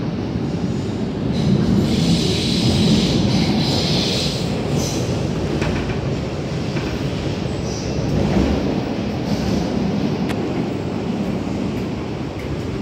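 Cabin noise of an MTR K-train metro train under way: a steady rumble of wheels on the rails. A higher, shriller wheel noise rises from about a second and a half in and fades by about five seconds.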